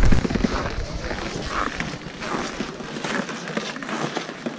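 Footsteps on snow-covered steps, with people's voices in the background. There is a low rumble on the microphone at the very start.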